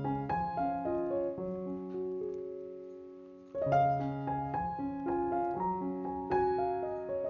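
Background piano music: a melody of struck notes and chords, with one chord left to fade about halfway through before the playing picks up again.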